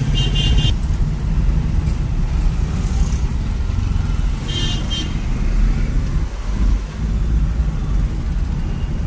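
Traffic heard from inside a moving car: a steady low rumble of engine and road, with a short vehicle horn honk right at the start and another about four and a half seconds in.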